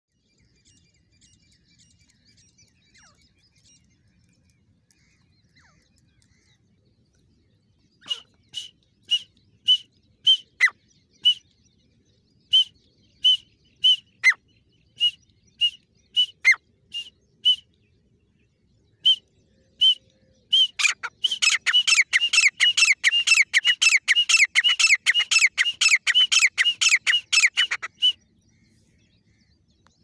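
Female grey francolin calling. About a third of the way in, sharp high notes come singly, roughly two a second. After a short pause they break into a fast, loud run of about four notes a second that stops abruptly shortly before the end.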